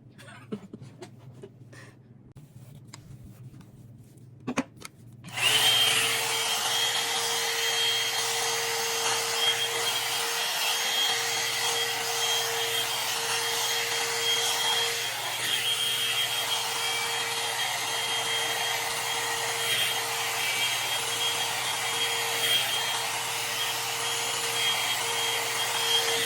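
A few faint clicks, then a Complex Culture hair dryer switches on about five seconds in and runs steadily: a rush of air with a steady whine.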